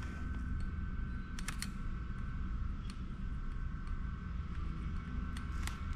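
Steady low hum with a faint steady whine behind it and a few light clicks, as pliers and a driver bit are fitted onto the nut and screw of a small aluminium heat sink. The driver is not running.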